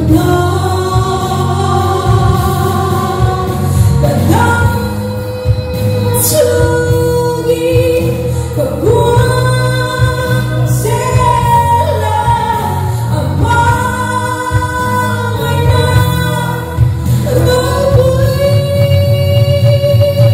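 A woman singing a gospel song into a handheld microphone over instrumental accompaniment. She holds long notes that slide and waver in pitch, with short breaks between phrases, over a steady low backing.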